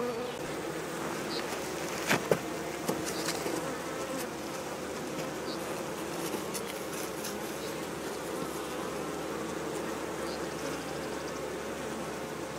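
Honey bees buzzing steadily at a busy hive entrance as they fly in and out, a continuous hum from the colony. A few light knocks come about two seconds in.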